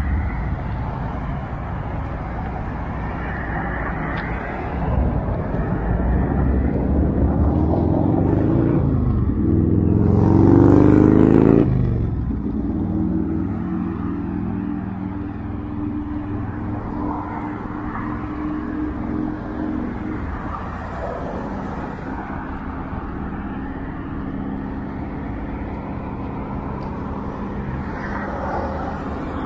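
Road traffic on a wide city street: cars driving past, with one vehicle passing close and loud about ten to twelve seconds in. After that comes a steady low hum under the traffic noise.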